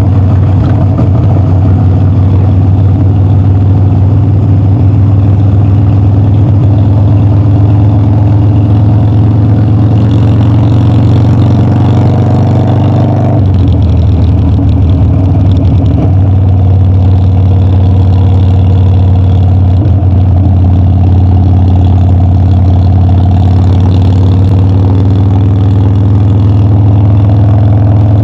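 Harley-Davidson Dyna's V-twin engine running steadily under way. About halfway through the engine note changes abruptly, as in a shift or a change of throttle, and it then runs steadily again.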